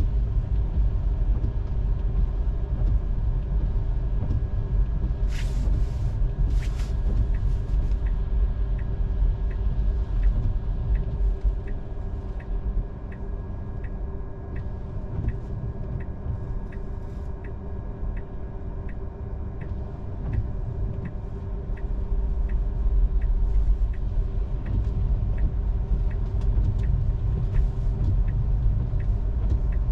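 Steady low road and tyre rumble inside a moving Tesla's cabin. From about eight seconds in, a turn-signal indicator ticks steadily, about three ticks every two seconds, and stops about two-thirds of the way through. Two sharp clicks come just before the ticking starts.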